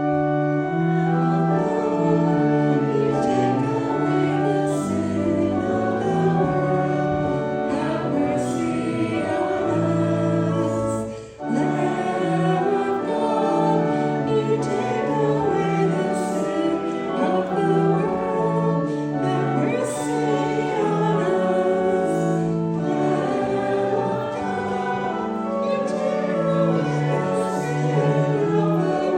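Church music for communion: a hymn sung with accompaniment, moving through held chords, with a short break about eleven seconds in.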